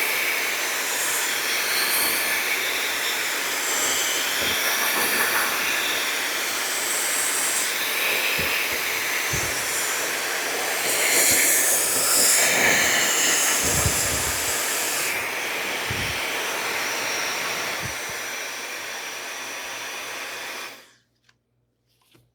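Hair dryer blowing on its cool setting: a loud, steady rush of air that wavers in tone, then switches off abruptly near the end.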